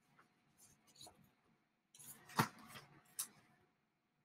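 Faint handling noises of paper sheets on a desk: a few soft rustles and clicks, with one sharper click about two and a half seconds in, over a faint steady hum.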